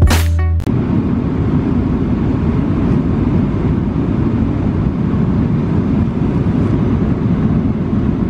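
Steady low cabin noise of an airliner in flight, the engine and airflow drone heavy in the bass, after a burst of music cuts off about half a second in.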